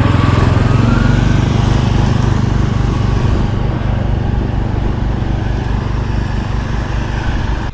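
Snowmobile engine running steadily as the machine drives along the trail, a rapid low drone that grows slowly a little quieter.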